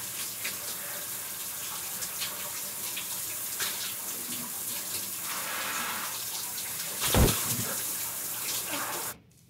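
Shower running steadily, water spraying and splashing on a person in a tiled bathtub, with one loud thump about seven seconds in. The water sound stops abruptly near the end.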